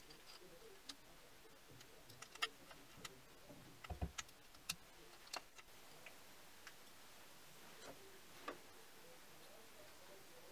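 Scattered light metallic clicks and taps from hand-assembling a brushless servo motor onto its aluminium mounting plate, with an Allen key working the screws, in a near-silent room. A dull knock comes about four seconds in, among a quick cluster of clicks.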